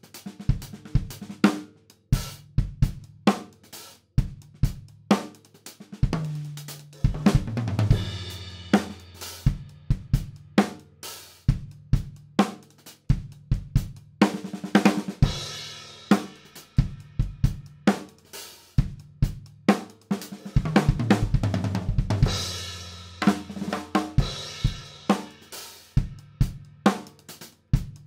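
Natal Originals walnut drum kit played with sticks: a groove on hi-hat, snare and bass drum, twice broken by tom fills that step down in pitch and end in cymbal crashes. The drums are on their stock heads and recorded raw, with no EQ or compression.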